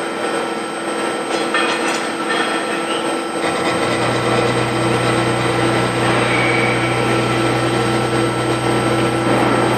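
CNC milling machine running, with a steady machine whine of several held tones over a noisy background. About four seconds in, a strong low hum sets in and holds as the spindle reaches the workpiece in the vise.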